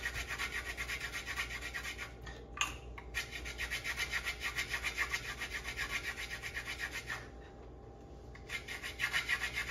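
Citrus being zested on a fine hand grater: quick, even rasping strokes about five a second, with a short pause about two seconds in and a longer pause of over a second later on.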